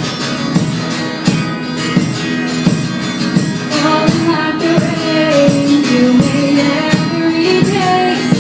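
Live band playing an instrumental passage of a pop song: strummed chords on a steady beat, with a melody line coming in about halfway through.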